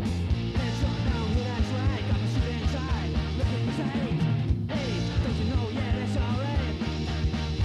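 Rock music with a steady beat, heavy bass and singing.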